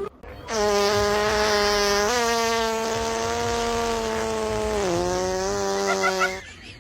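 A long, buzzing fart noise held on one pitch for about six seconds. It steps up a little about two seconds in, drops near the end, then cuts off.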